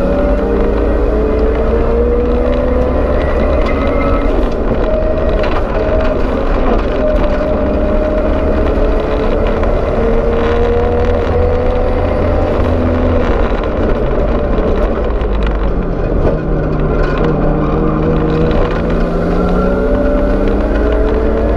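Nissan Skyline R31 race car's engine heard from inside the cabin at full racing pace, loud and continuous, its pitch repeatedly climbing and dropping back at gear changes. It falls lower about three-quarters through, braking for a corner, then climbs again, over heavy road and cabin rumble.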